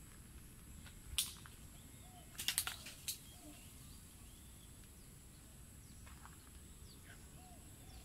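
Quiet outdoor ambience: a few footsteps on the path, one a little over a second in and a short cluster around two and a half to three seconds, over faint scattered bird chirps and a steady high-pitched insect drone.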